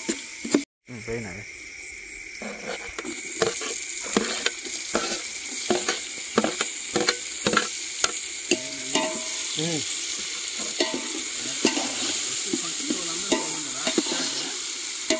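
Onions, green chillies and tomatoes frying in oil in an aluminium pot over a wood fire, sizzling, with a steel ladle stirring and clicking against the pot. The sizzle grows stronger after about three seconds.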